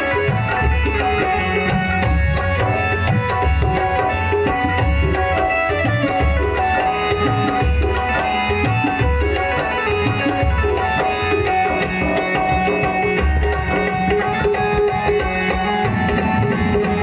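Instrumental interlude of a devotional bhajan: tabla playing a steady rhythm under sustained melody lines, with a deep beat coming about every second and a half.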